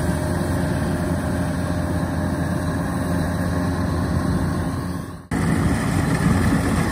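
Kubota DC-93 rice combine harvester working in the field, its diesel engine and threshing machinery a steady drone. The sound breaks off abruptly about five seconds in and comes back a little louder.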